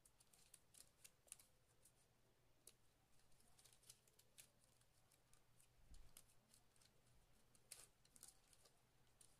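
Faint, scattered clicks and rustles of plastic pearl-ribbon strips being threaded, folded and pulled tight while weaving, over a steady low hum.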